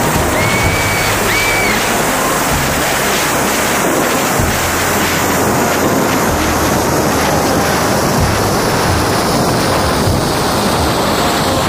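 Wind rushing over the microphone of a rider speeding down a zipline: a loud, steady noise without a break.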